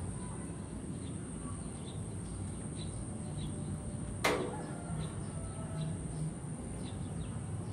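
Outdoor ambience: a steady low rumble and a steady high hiss, with faint, scattered bird chirps. One sharp click a little past the middle.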